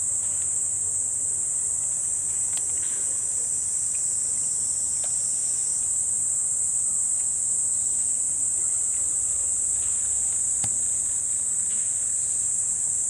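Steady, high-pitched insect chorus droning without a break, with a few faint clicks.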